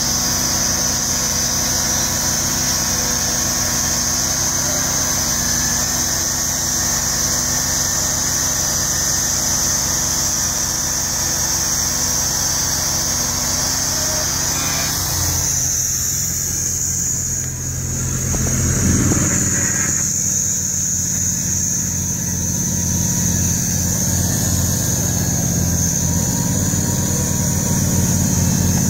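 Norwood portable bandsaw mill running: its small gas engine drives the band blade through a log while the saw head is cranked along the track, with a steady high whine over the engine. About halfway the engine note dips and then climbs back up over a few seconds.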